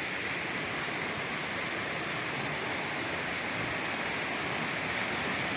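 Waterfall's falling water making a steady, even rushing noise.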